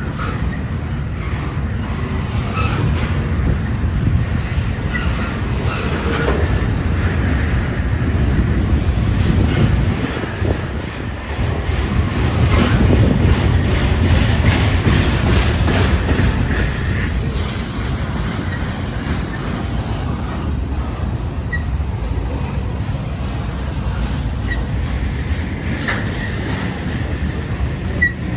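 Freight train of intermodal cars rolling past, a steady low rumble of steel wheels on rail with faint regular clicking and a few brief, faint wheel squeaks.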